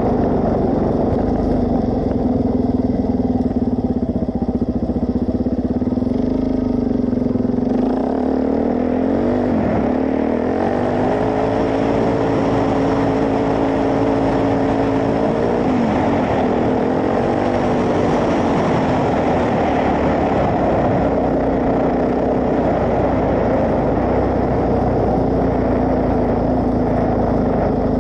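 Suzuki DR-Z400S single-cylinder four-stroke engine running under way. Its pitch falls and rises about eight to ten seconds in, holds higher for a few seconds, dips again near sixteen seconds, then settles back to a steady note.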